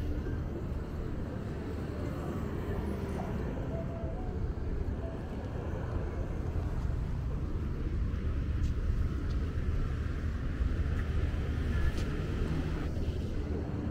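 Street ambience dominated by a steady low rumble of road traffic, with faint scraps of voices and a single sharp tick near the end.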